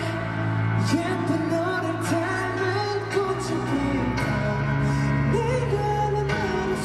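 Live concert audio of a slow pop ballad, with a voice singing over the backing music.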